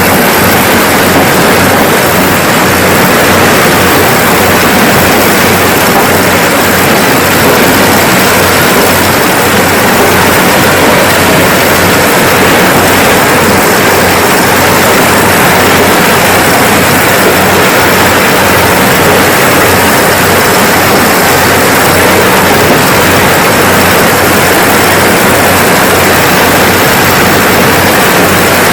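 Kubota DC-70G rice combine harvester running steadily under load: an even, loud mechanical noise with a low engine hum, unchanging throughout.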